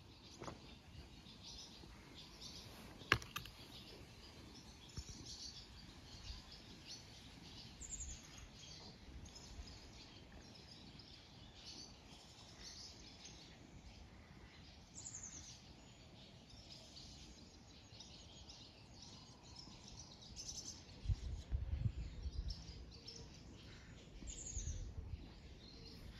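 Small wild birds chirping and calling, faint and scattered, with three high, quickly falling calls. A single sharp click about three seconds in, and some low rumbles near the end.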